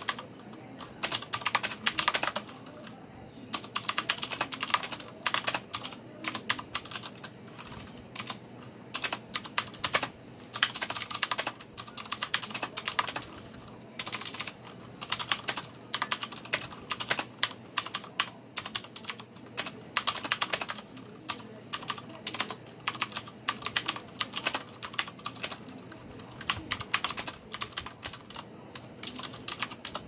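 Typing on a Logitech G610 mechanical keyboard with Cherry MX Blue switches: a fast, uneven run of sharp key clicks, the audible click of the blue switches, broken by a few short pauses.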